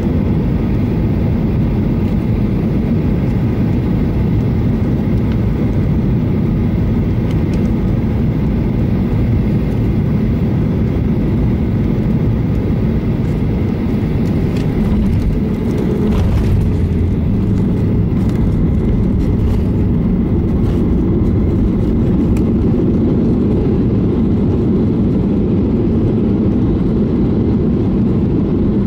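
Inside the cabin of a Boeing 737-800 landing: a steady rush of engine and airflow noise, a jolt about sixteen seconds in as the wheels touch down, then a louder low rumble with scattered rattles as the jet rolls out on the runway with its spoilers up.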